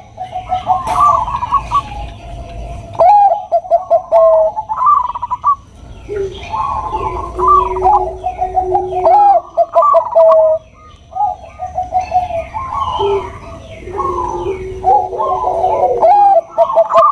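Zebra doves of the Bangkok perkutut type cooing: repeated phrases of quick notes ending on a held note, from more than one bird overlapping, with brief pauses about 3 seconds in and again past the 10-second mark.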